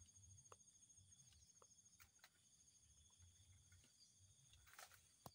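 Near silence: a few faint clicks and a brief faint rustle near the end.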